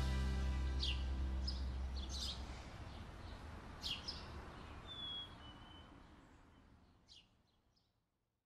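Birds chirping now and then over a soft outdoor background hiss, with one short thin whistle about five seconds in; the whole ambience fades out to silence near the end. A low music bed dies away in the first second or two.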